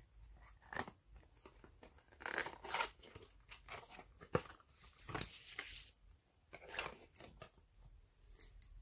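A small cardboard gift box being opened by hand and a plastic cream jar taken out of it: scattered rustles, scrapes and light clicks.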